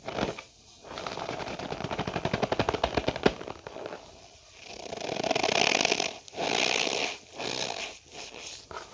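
Cornstarch powder being squeezed and pressed, giving a rapid run of squeaky crackles over a couple of seconds. Then come several longer squeaky, crunchy pushes with short pauses between them.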